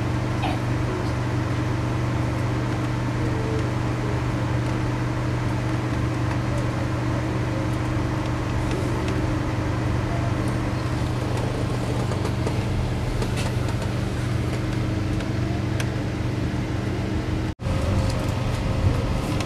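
Steady running noise of a moving passenger train, heard from inside the carriage: a constant low drone with several unchanging tones over an even rumble and rattle. It breaks off for an instant near the end, then carries on.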